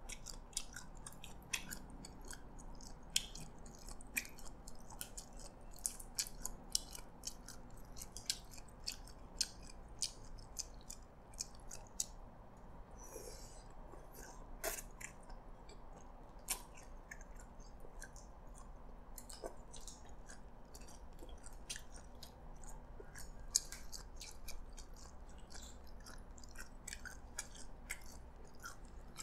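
A person chewing Hokkien prawn noodles, with many sharp, irregular wet mouth clicks and smacks.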